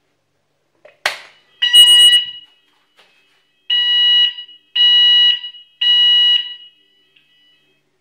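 A click as the manual call point is pressed, then the electronic fire-alarm sounder beeps four times, high-pitched and pulsed about once a second. It stops after about five seconds, cut off by the siren timer set to six seconds.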